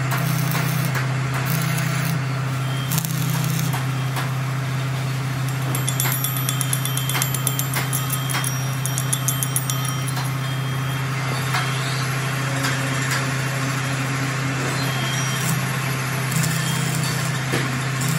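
Stick arc welding on the broken teeth of a steel truck gear: the arc crackling over a steady low machine hum. In the middle comes a run of sharp metallic taps on the gear.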